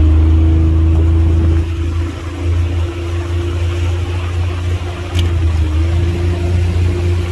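Nissan four-stroke outboard motor running steadily under way, with a steady hum and wind buffeting the microphone.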